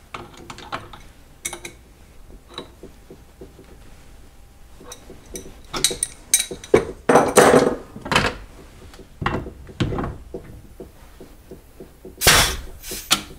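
Scattered metal clicks from a wrench turning the drawbar nut a quarter turn on a mill's R8 spindle, adjusting it so the pneumatic power drawbar will just release the tool holder. Louder knocks and clunks follow as the wrench is put aside and the power drawbar unit is set back onto the spindle head, the loudest thump near the end.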